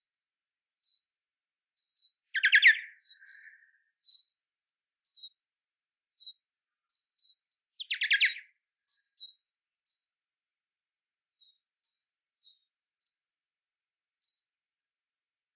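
Bats calling: short high chirps, each sweeping down in pitch, repeated irregularly about once a second, with two louder rapid buzzing trills about two and a half and eight seconds in.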